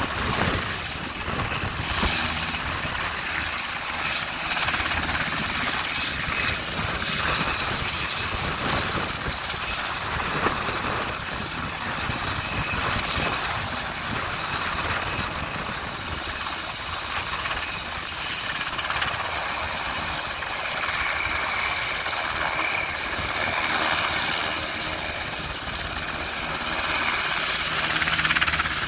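Sikorsky UH-60A Black Hawk helicopter running on the ground with its twin turboshaft engines and main and tail rotors turning: a steady mix of turbine and rotor noise, with a faint high whine in the later part.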